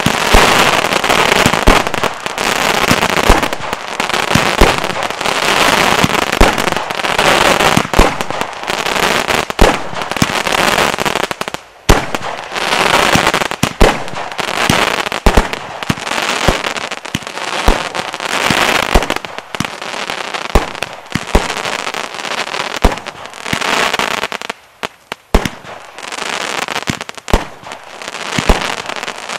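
Thunderbore firework barrage firing continuously: rapid sharp shots and bursts, about one every half second to a second, over a dense hissing crackle. It eases off briefly twice, about a third of the way in and again near the end.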